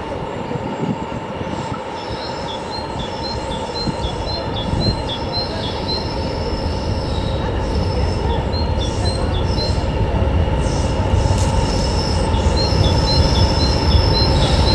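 BR Class 20 diesel locomotive hauling coaches towards the listener. Its turbocharged English Electric engine runs with a steady whine over a rumble, growing louder as it nears. A bird chirps repeatedly in short runs.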